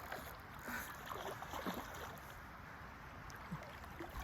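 Faint, steady rush of flowing river water, with a few small splashing or gurgling sounds.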